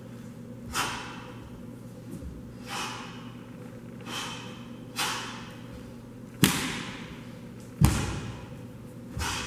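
Taekwondo black-belt pattern performed barefoot. A short, sharp whoosh comes with each technique, roughly every one and a half to two seconds, and a little past halfway there are two heavy thuds of a bare foot stamping on the hall floor, the loudest sounds here.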